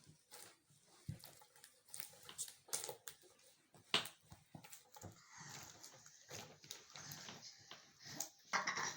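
Softened butter being mashed and worked in a bowl: a run of irregular soft squelches and small clicks.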